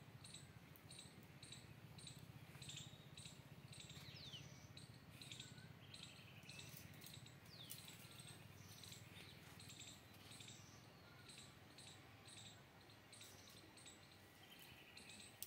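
Faint outdoor chirping: a short high chirp repeated about twice a second, with a few other brief scattered calls over a low rumble.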